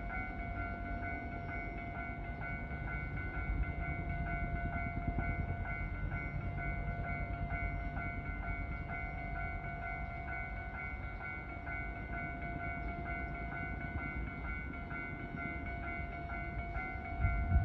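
A train at the station: a steady low rumble with a steady high-pitched whine over it. A louder low thump comes near the end.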